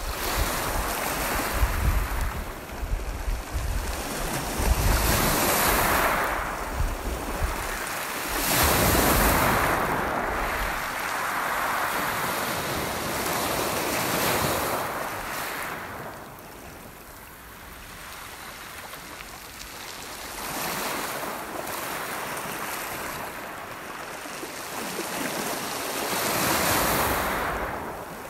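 Lake waves breaking on a pebble shore, surging in and washing back every few seconds. Wind buffets the microphone with a low rumble during the first several seconds.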